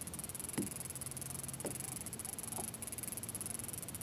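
Quiet ambience aboard a kayak on calm water: a steady faint hiss with a soft tick or tap about once a second.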